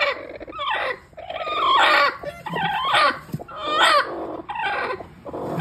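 A broody black hen giving a run of harsh protesting calls, each falling in pitch, about one a second, as she is disturbed on her eggs in the nest box.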